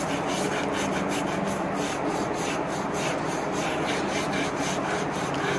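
Scrub sponge rubbing back and forth over a cow's clipped hide in quick, even strokes. This is the iodine surgical scrub of the flank before the incision.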